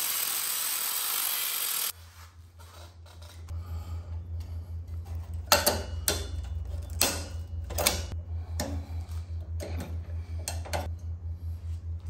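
Angle grinder with a cutoff wheel cutting into a golf cart's steel rear axle bearing, stopping suddenly about two seconds in. Then a series of sharp metal clicks and knocks as the cut bearing is pried apart and broken off the axle shaft, over a low, steadily pulsing hum.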